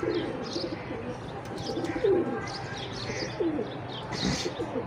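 Domestic pigeons cooing in repeated short phrases, with high-pitched chirping from small birds.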